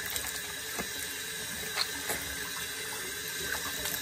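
Water running into a bathroom sink and splashing as hands rinse cleanser off a face, with a few sharper splashes.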